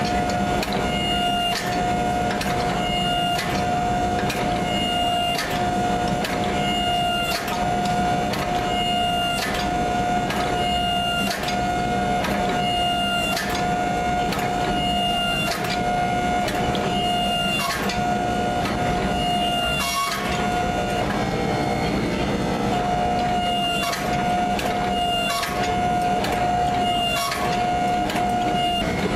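A forging press squeezing a hot 52100 steel round bar flat, its hydraulic pump giving a steady whine. Frequent sharp clicks and cracks come about once or twice a second.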